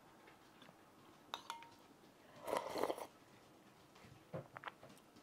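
Spoon clinking against a glass bowl of rice porridge, one clink with a short ring, then a brief slurp about halfway through and a few light taps of the spoon near the end.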